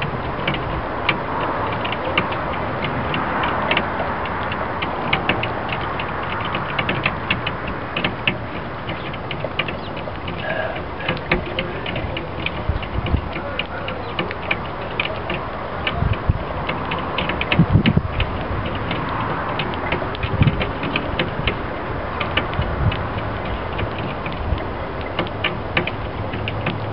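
Sparrows pecking seed off a glass table top: rapid, irregular beak taps on the glass that sound like Morse code, with a few heavier low thumps in the middle.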